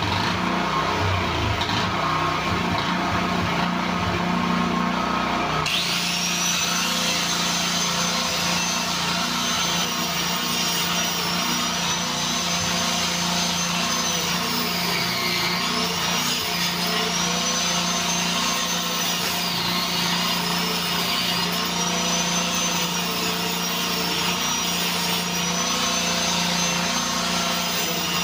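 Electric angle grinder running continuously as it cuts into a concrete wall. About six seconds in a high whine comes in, and its pitch dips and recovers repeatedly as the disc is pressed into the cut.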